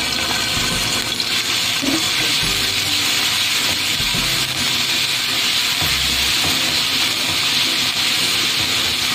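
Garlic paste frying in hot oil in a nonstick pan: a loud, steady sizzle as it is stirred with a spatula.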